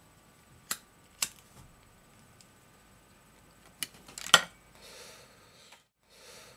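A few separate sharp clicks, then a louder cluster of knocks about four seconds in, followed by a soft hiss that cuts out briefly near the end.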